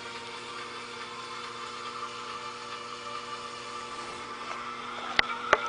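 Steady low machine hum in the room, then about five seconds in two sharp metallic clicks from the Remington 700's bolt being handled.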